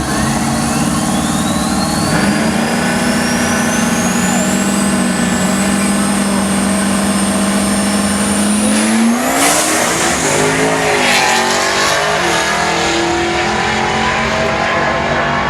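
Turbocharged Ford Lightning pickup accelerating hard, its turbo whine climbing steadily in pitch for about nine seconds over the engine. Then comes a sudden burst of noise, the whine cuts off, and the engine note wavers as the throttle comes off.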